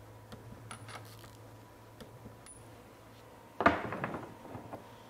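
A few faint clicks from a hand wrench working on nuts. Then, about three and a half seconds in, a short metallic clatter as a metal tool is set down.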